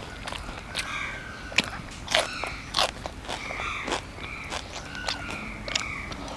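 A person eating at close range: crunchy bites and chewing, with sharp clicks of cutlery on a plate.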